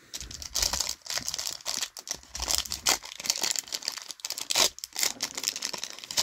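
Foil wrapper of a MetaZoo Wilderness booster pack crinkling and tearing as it is ripped open by hand, a dense run of sharp crackles with louder crinkles about three and four and a half seconds in.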